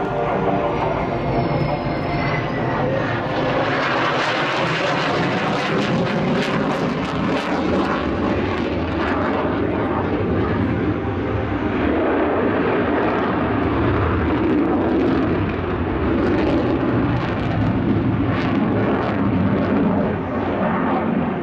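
Twin AL-31F turbofan jet engines of a Sukhoi Su-27 flanker overhead, loud and steady throughout. In the first few seconds a faint whistling tone dips and rises in pitch. By the middle of the stretch both afterburners are lit as the jet climbs, with a crackling edge to the jet noise.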